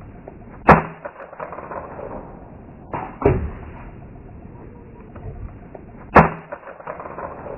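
Hammer blows striking a flip clock while trying to break it open: sharp hits about three seconds apart, a quick double hit in the middle, each followed by brief rattling and clatter.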